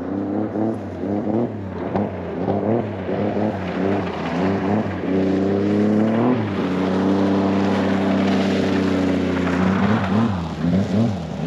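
A snowmobile running very loud across the frozen lake. Its engine pitch climbs over the first six seconds, holds steady at high revs for a few seconds, then wavers and drops near the end.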